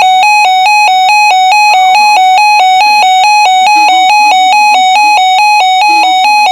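Weather alert radio's alarm sounding for a flood warning: a loud two-pitch warbling tone that flips between two close pitches several times a second, with faint speech underneath.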